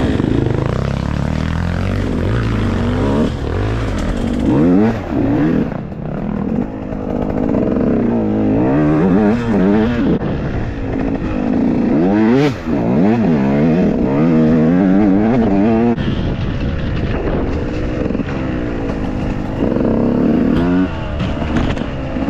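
Enduro motorcycle engine revving up and falling back again and again as the throttle is worked, its pitch climbing and dropping every second or two.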